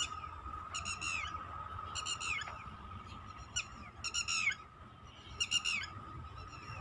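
A bird calling repeatedly in open farmland, short harsh calls that each drop in pitch, coming about once every second or so, over a steady faint high tone.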